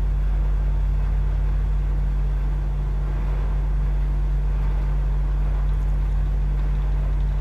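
A steady low hum with no other sound over it.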